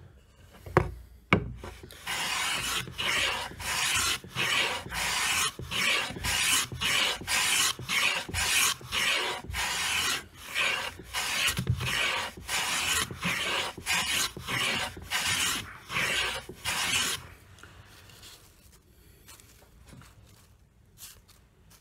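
Restored Soviet metal bench plane (Voskov) planing a beech block: a quick run of repeated strokes, each a rasping hiss as the blade takes a shaving. Two sharp knocks come about a second in; the strokes stop about four seconds before the end.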